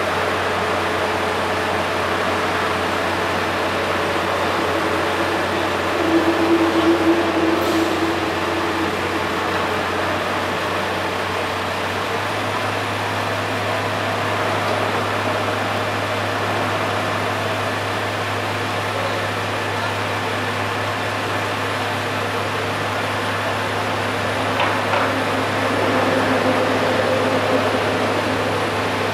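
Heavy diesel engine running steadily with a low hum that steps up slightly in pitch about twelve seconds in, over a wash of street traffic noise. Brief louder swells come about six seconds in and again near the end.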